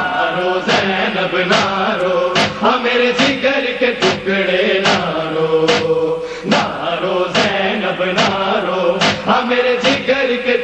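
Voices chanting a noha lament in chorus over a steady, sharp beat that falls a little more than once a second.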